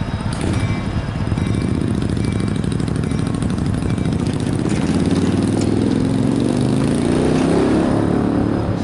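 Road vehicles driving over a railroad grade crossing, under a low engine rumble that climbs steadily in pitch through the second half.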